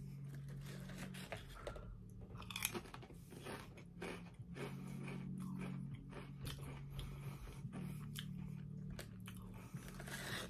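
A person crunching and chewing potato chips close to the microphone: a run of short, irregular crunches. A low hum sits underneath.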